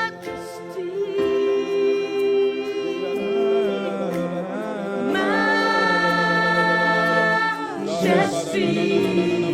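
Worship singers holding long, slow notes of a praise song, voices together.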